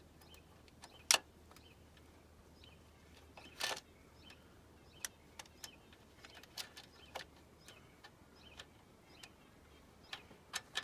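Metal clicks and clinks of a new timing chain being fed by hand around the sprockets of an R53 Mini Cooper S engine: one sharp click about a second in, a short clatter a few seconds later, and light scattered ticks of chain links.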